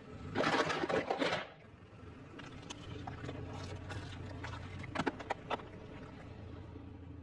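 Objects being crushed under a car tyre: a loud burst of crackling and crunching near the start, then scattered sharp cracks and pops, over a low steady hum.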